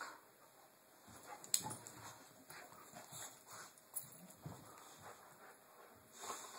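Faint scuffling and short dog noises from a boxer and a smaller long-haired dog play-fighting, broken by a few sharp clicks, the loudest about a second and a half in and another about four seconds in.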